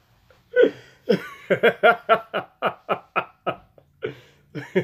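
A man laughing hard in rapid, repeated bursts, about four or five a second, with a short break about three and a half seconds in before the laughter picks up again.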